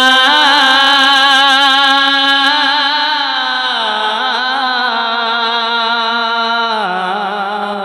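A male naat reciter singing one long, drawn-out note with vibrato, unaccompanied, stepping down in pitch twice and slowly getting quieter.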